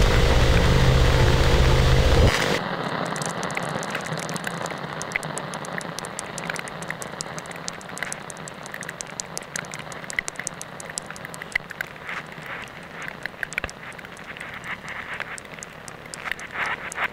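A loud, low droning chord from an experimental electronic track that cuts off suddenly about two and a half seconds in, giving way to a quieter bed of dense crackling clicks that slowly fades, with a few sharper crackles near the end.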